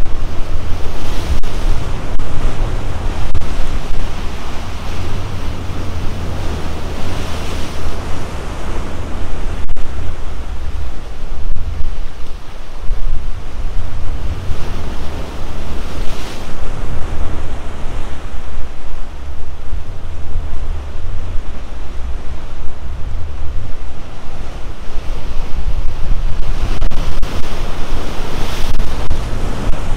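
Ocean surf breaking against rocky shoreline, with several waves crashing in white rushes over a continuous wash of water. Heavy wind buffets the microphone with a low rumble throughout.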